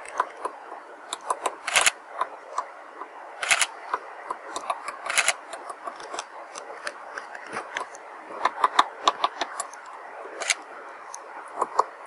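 Woodpecker pecking at a branch: irregular sharp taps of its bill on the wood, coming in small clusters with short pauses, a few strikes much louder than the rest.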